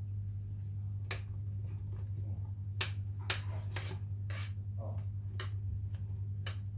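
Scattered light clicks and knocks of food and a utensil being handled in a cooking pot, over a steady low hum.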